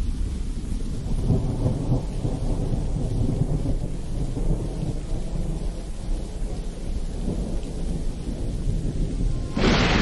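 Low rolling thunder with rain, a thunderstorm sound effect slowed down at the opening of a rap track. A brighter, louder hiss comes in just before the end.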